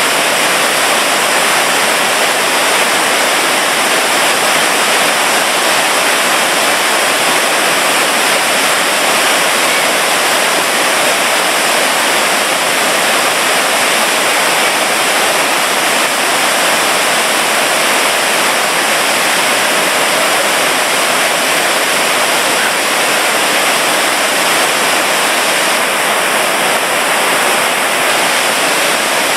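Waterfall: falling water rushing steadily and loudly, an even, unchanging wash of noise with no breaks.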